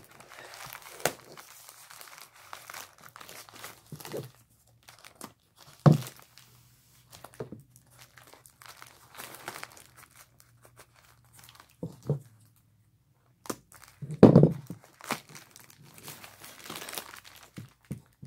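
Plastic mailer and packing tape crinkling and tearing as a heavily taped parcel is pulled open by hand, with several dull knocks as the package is handled, the loudest about two-thirds of the way through.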